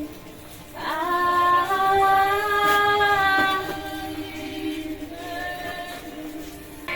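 A woman singing in a song, holding one long note from about a second in, then going on more softly.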